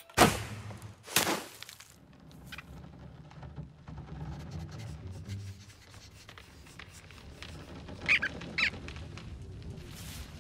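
Cartoon sound effects: two sharp hits about a second apart, then a low rumble, with two short high squeaks from the cartoon rodents about eight seconds in.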